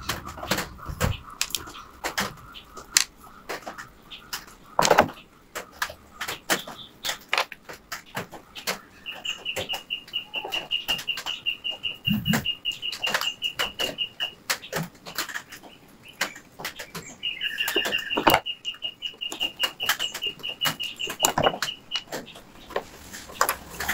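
Small metal clicks and taps as a Walbro chainsaw carburetor is taken apart by hand and its cover and tiny screws are handled on a wooden bench. A high, rapidly pulsing chirp comes in about nine seconds in and runs for several seconds, then again from about seventeen seconds.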